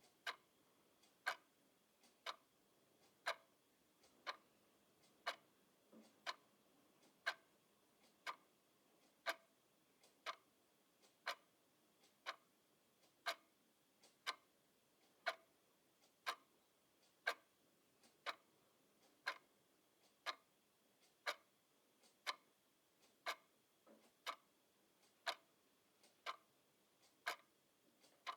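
Grandfather clock ticking slowly and evenly, about one tick a second, the ticks alternating slightly stronger and weaker as tick and tock.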